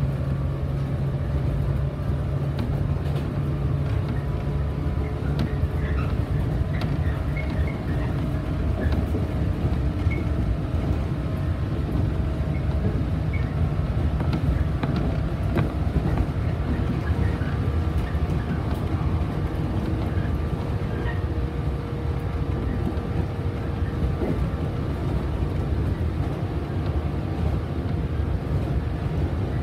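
Cabin noise of a JR 115-series electric multiple unit running at speed: a steady low rumble of wheels and running gear on the rails, with faint steady hum tones over it.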